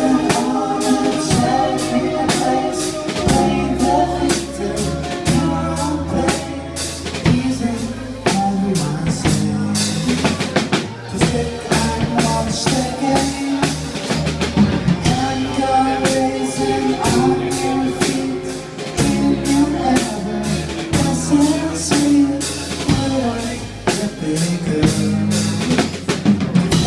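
A band playing an instrumental passage: a drum kit keeps a steady beat with kick drum, snare and rimshots over low sustained notes and other instruments, with no singing.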